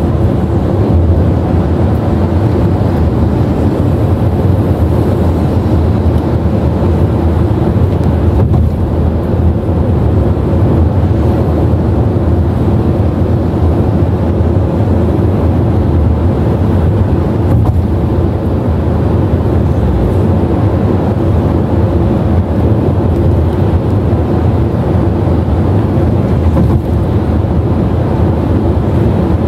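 Steady low rumble of a car driving along a highway, heard from inside the cabin: tyre, engine and wind noise with no change in pace.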